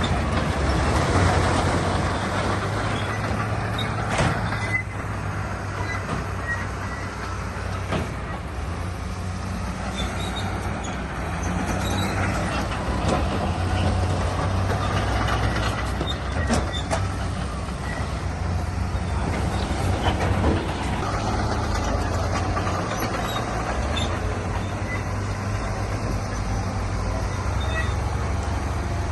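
Diesel bulldozer running steadily under load, with metal clanks and short squeals now and then from the machine working through rock.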